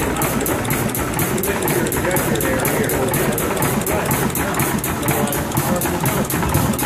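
Old vertical stationary diesel engine with air-blast fuel injection running steadily, together with its engine-driven air compressor, which keeps up the injection and starting air. The running has a fast, even beat of regular mechanical strokes.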